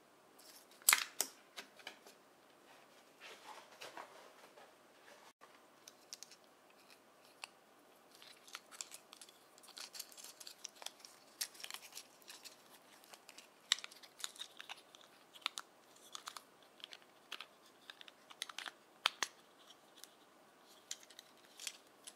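Small plastic Thomas the Tank Engine transforming toy being handled, its hinged parts clicking and snapping as they are folded and fitted together by hand. Irregular sharp clicks throughout, the loudest about a second in.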